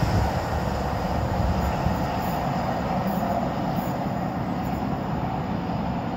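Diesel High Speed Train with Class 43 power cars running away into the distance: a steady rumble of engines and wheels on rail that eases off slightly as it recedes.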